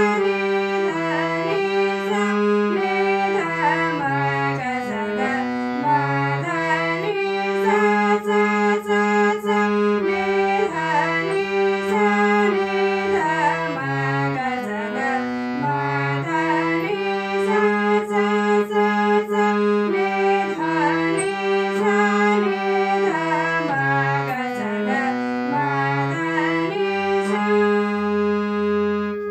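Harmonium playing a melody in held, stepping notes with its reeds sounding continuously; it stops abruptly at the very end.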